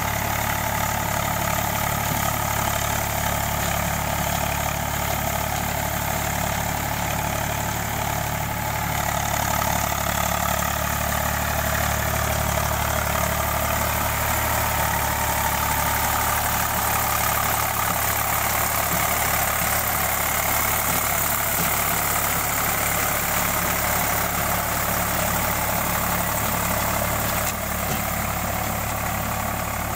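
Eicher 485 tractor's diesel engine running steadily under load while it drives a rotavator through wet paddy-field soil, puddling the field for rice.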